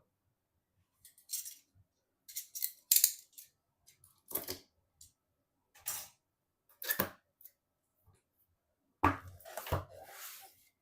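Intermittent handling sounds of PC parts and their packaging: about six short bursts of clicks and rustling with silence between them. The longest burst, near the end, opens with a thump.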